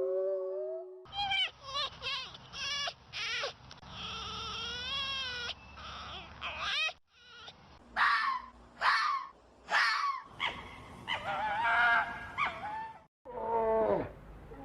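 A series of short, high-pitched animal calls from several spliced recordings: quick chirps in the first few seconds, a wavering call, then three or four calls that fall in pitch, and a denser run of calls near the end.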